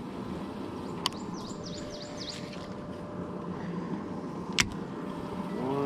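Open-water ambience with a steady low hum and a faint steady whine. A bird gives a quick series of high descending chirps after about a second and a half. Two sharp clicks sound, one about a second in and one later.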